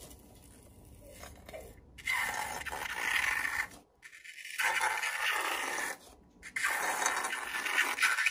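Pink slime squelching and squirting out of the cut neck of a squeezed latex balloon onto a plate. It comes in three wet stretches of a second or two each, starting about two seconds in.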